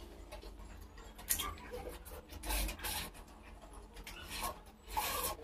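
Mouth eating sounds from someone chewing and slurping chow mein noodles, in several short bursts.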